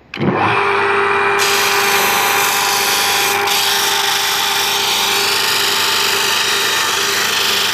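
Homemade electric disc sander running with a steady motor whine. About a second and a half in, the hiss of an oak block being sanded against the 120-grit disc joins in and continues.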